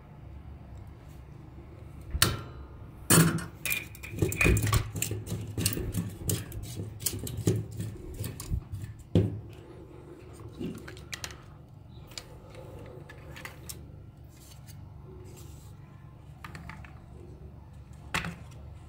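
Hard plastic toy parts clicking, clattering and knocking as the toy is handled and its casing is fitted back together, in a dense run for several seconds, then a few scattered knocks and one more near the end.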